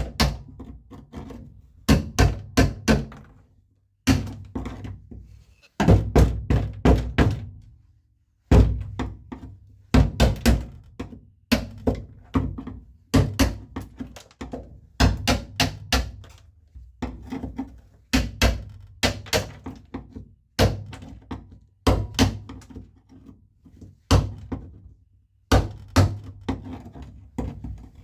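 Hammer driving a screwdriver to chip old sound-deadening off a car's floor pan: quick bursts of three to five sharp knocks, each burst followed by a short pause.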